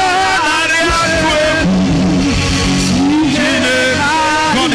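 Church worship music: sustained keyboard chords with a voice singing a gliding melody over them.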